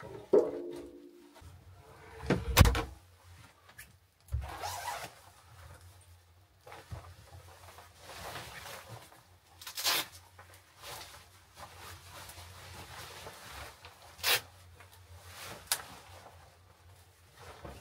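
A wooden cabin door creaks on its hinges and shuts with a heavy thud, followed by cloth rustling and a few sharp knocks and clicks as a jacket is taken off and hung on wall hooks.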